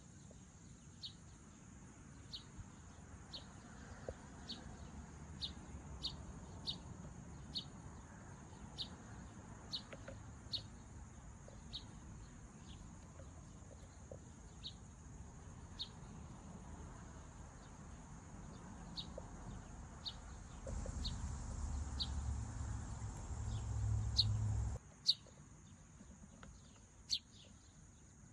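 A bird repeating a single short, high chirp about once a second, over a steady high insect drone. A low rumble comes in about 21 seconds in and cuts off sharply near 25 seconds.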